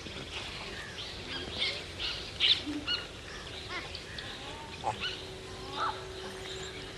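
Young gray langurs squealing and chirping while they play-fight: many short, high squeaks, loudest about two and a half seconds in, with a few sliding calls near five and six seconds.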